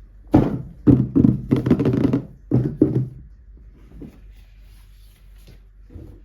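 A run of sudden knocks and handling noises, loud and close together in the first three seconds, then a few faint ticks.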